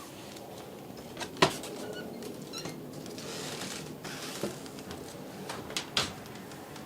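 A few sharp clicks and knocks, the loudest about a second and a half in and two more close together near the end, over a steady low hum.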